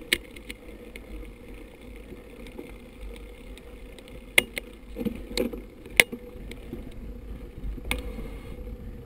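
Mountain bike rolling downhill on a bumpy grass and dirt track: a steady low rumble of tyres and wind on the camera, with sharp knocks and rattles from the bike as it goes over bumps, the loudest about four and six seconds in.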